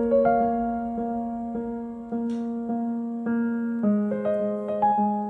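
Background piano music: soft, steady notes struck about twice a second, with the chord changing about four seconds in.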